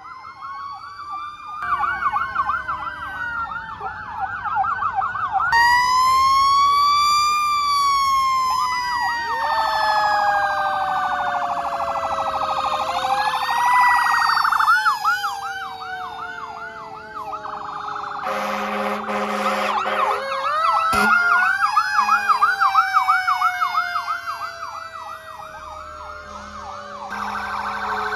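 Several emergency-vehicle sirens, from an ambulance and fire engines, sounding at once. Slow wails rise and fall over fast yelps. A horn blast comes about two-thirds of the way in and again near the end.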